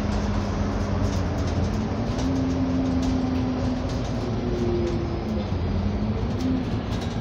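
Interior noise of an Alexander Dennis double-decker bus on the move: steady engine and road rumble with a hum that shifts in pitch now and then, and light clicks and rattles.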